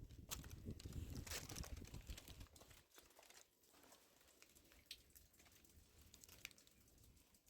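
Near silence with faint, scattered crackles and rustles, a little livelier in the first two or three seconds.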